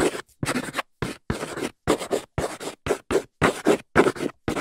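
Chalk scratching on a blackboard as letters are written: a quick run of short strokes, about two or three a second.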